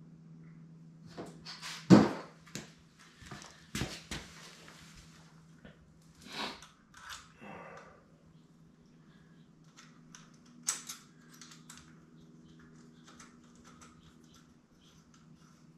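Scattered clicks, knocks and rustling of hands fitting a motorcycle windshield's mounting bracket and bolt at the fork, with a sharp knock about two seconds in and another near eleven seconds. A steady low hum sits beneath.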